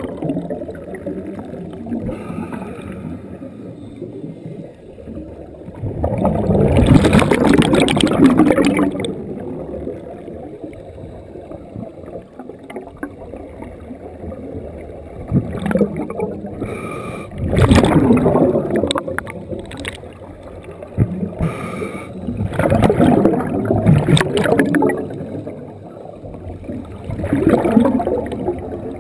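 Scuba regulator breathing underwater, picked up through a GoPro's waterproof dive housing. Four long bursts of exhaled bubbles rush and gurgle several seconds apart, with a low steady rumble between them.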